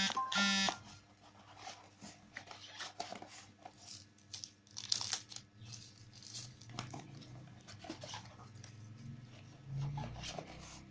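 A dog barks twice at the very start. Then comes irregular rustling, crinkling and tearing of packaging as a phone box is unpacked by hand.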